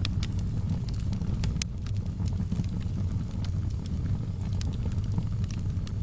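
Fire burning in a fireplace: a steady low rumble with scattered sharp crackles and pops, the loudest about one and a half seconds in.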